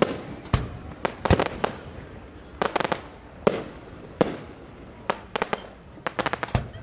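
Fireworks going off: a string of sharp bangs, some single and some in quick crackling clusters of several pops.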